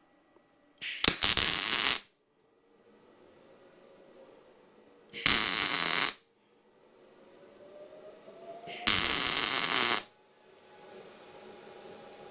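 MIG welder arc crackling in three short tack welds of about a second each, a few seconds apart, tacking steel legs onto a steel body.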